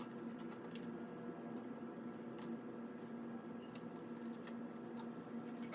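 A faint steady hum with a few light clicks scattered through it.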